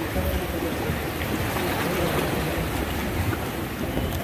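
Steady noise of sea water and wind, with low uneven rumbling from wind buffeting the microphone.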